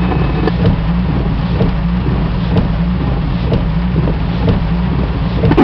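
Steady low engine drone heard from inside a cabin, with a few faint ticks.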